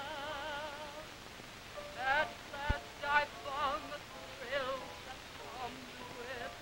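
Woman's operatic singing voice vocalizing with a wide, wobbling vibrato: one held note, then a string of short warbling runs. One sharp click cuts in a little before the middle.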